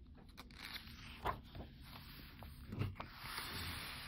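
Pages of a printed picture book being turned by hand: paper rustling and sliding, with a few short handling taps and a longer swish about three seconds in.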